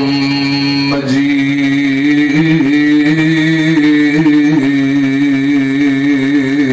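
A man chanting in long, drawn-out melodic notes into a microphone, in a qari's recitation style, the pitch turning in small ornamental waves. One phrase ends about a second in, and the next note is held until it stops just before the end.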